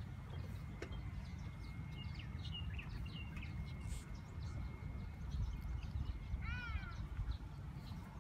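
Wind rumbling on the microphone, with birds calling over it: scattered short chirps and, about six and a half seconds in, a quick run of rising chirps.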